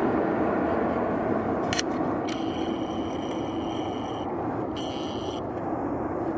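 Jet airliner engine noise, a loud, steady rush with a low hum, slowly fading. About two seconds in, a high electronic beep sounds for about two seconds, followed by a shorter second beep.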